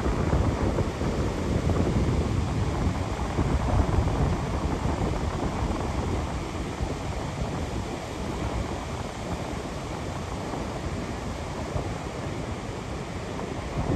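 Wind buffeting the microphone, a low rumble that eases slightly through the second half, over the steady wash of ocean surf breaking on a sandy beach.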